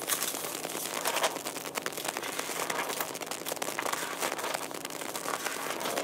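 Plastic packaging and paper being handled: a dense, steady run of small crinkles, crackles and rustles.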